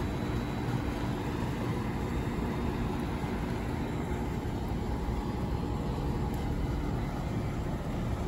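Steady low rumble with a faint, even hum running underneath; no distinct events stand out.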